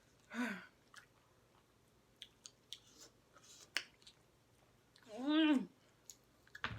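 Quiet chewing and small wet clicks of someone eating spicy chicken legs, with a short voiced moan just after the start and a longer rising-and-falling moan about five seconds in.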